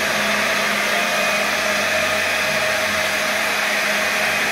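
Electric blender running steadily at full speed, puréeing cooked vegetables into a smooth soup.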